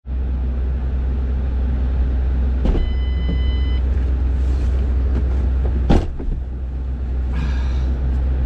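Car running with a steady low rumble, a short electronic beep about three seconds in and a sharp knock about six seconds in.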